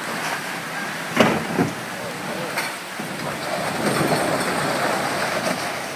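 Volkswagen Amarok pickup working over rough off-road ground: a steady noise of engine and tyres, with two sharp knocks a little over a second in and a louder stretch in the second half.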